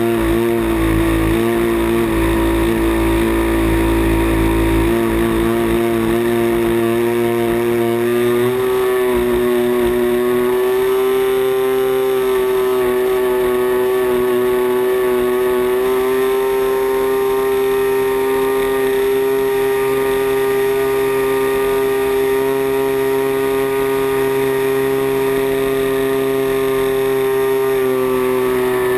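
A giant-scale RC plane's 40cc CRRC two-stroke gas engine and propeller running steadily in flight, heard from on board. The engine note rises slightly about nine seconds in and dips briefly near the end. Wind rumbles on the microphone for the first few seconds.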